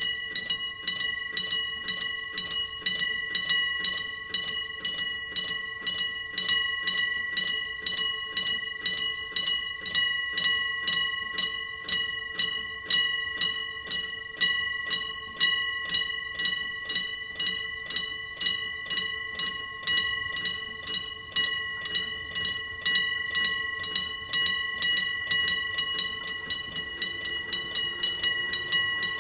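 Electric-bell level crossing alarm on the Hokuriku Railroad ringing continuously: a gong hammered rapidly and evenly, several strikes a second, each ringing on into the next. The sound of a crossing in its warning cycle as a train approaches.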